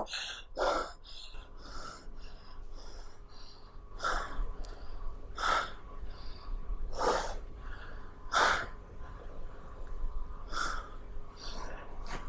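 Noisy breathing: short, breathy puffs, about one every second and a half, some louder than others.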